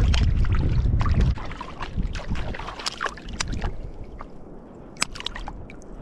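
Shallow river water sloshing and splashing around wading feet. A heavy low rumble fills about the first second, then scattered sharp small splashes and drips follow.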